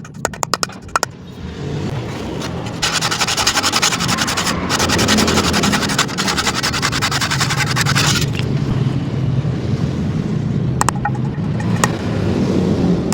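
Power tool running with a steady low drone, and a harsh, hissy stretch from about three to eight seconds in as it bites into wood; a quick run of clicks opens it.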